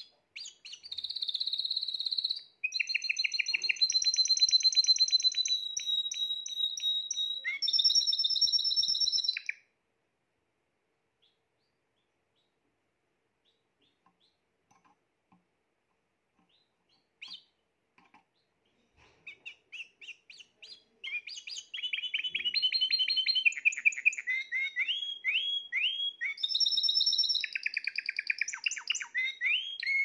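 Spanish Timbrado canary singing in long runs of rapid trills. It sings for about nine seconds, falls silent for several seconds, then a few scattered notes lead back into continuous song.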